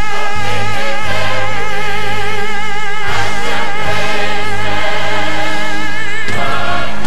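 Full chorus and orchestra singing a stage-musical number, holding long notes with vibrato. A new phrase starts about three seconds in and again near the end.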